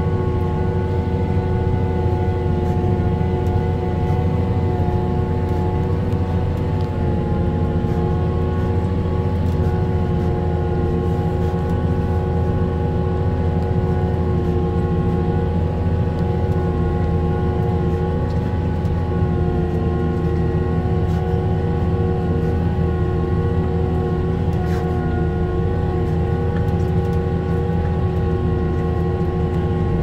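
Fendt 828 Vario tractor's six-cylinder diesel engine pulling steadily under ploughing load, heard from inside the cab. It is a constant deep drone with a steady whine on top, without change throughout.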